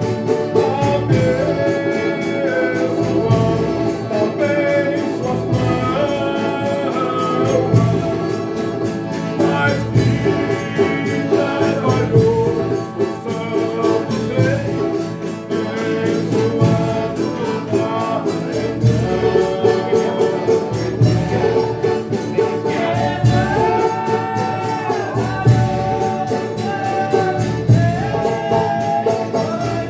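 A Folia de Reis group singing a song of thanks for a meal in several-voice harmony, in long sung phrases, over a steady beat with tambourine and other instruments.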